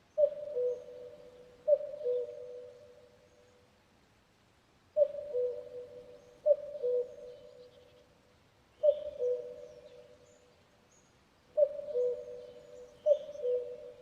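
Common cuckoo calling its two-note falling "cuck-oo" seven times, mostly in pairs about a second and a half apart with short pauses between, each call ringing on with echo. Faint chirps of other small birds sound behind.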